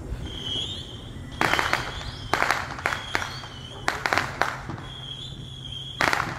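Neighbourhood fireworks out of shot: several short bursts of crackling and popping, with high steady whistles sounding between them.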